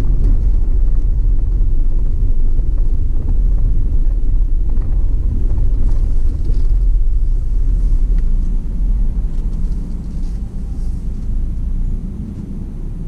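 Car driving along a street, a steady low rumble of road and engine noise that eases off somewhat in the last few seconds.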